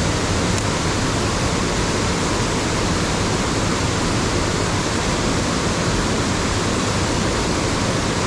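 Fast-flowing mountain stream rushing over rocks, a steady, unbroken water noise.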